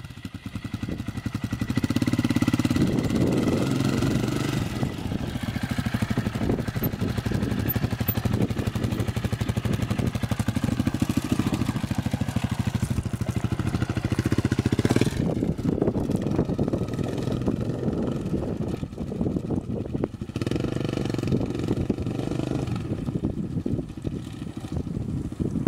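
Triton 450 Supermoto quad's engine being ridden hard, rising and falling in pitch with the throttle, growing a little fainter near the end as the quad moves off.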